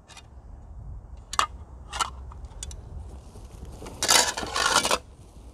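A few light clinks of steel armour plates being handled, then about a second of loud crinkling and scraping of plastic and cardboard packaging about four seconds in.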